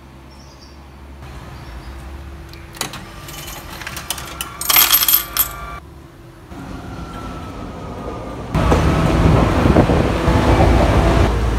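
Coins clattering and clicking in a railway ticket vending machine as a ticket is bought and issued, loudest about five seconds in. From about three-quarters of the way through, a loud steady noise inside a train carriage.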